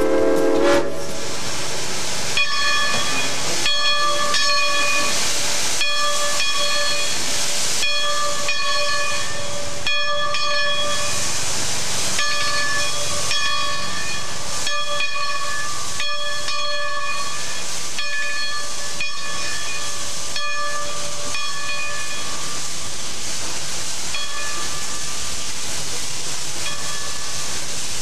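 Steam whistle of a wood-fired Climax geared steam locomotive dying away about a second in, then steady steam hissing with a whistling tone that breaks off and returns many times as steam vents from the engine.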